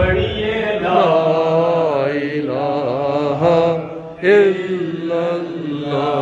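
A man chanting a melodic devotional Islamic recitation into a microphone, holding and bending long notes, with a short breath pause about four seconds in before the next phrase.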